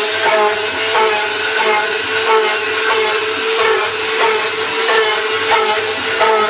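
Hobby CNC router spindle cutting material, a steady grinding noise with a constant tone, over background guitar music.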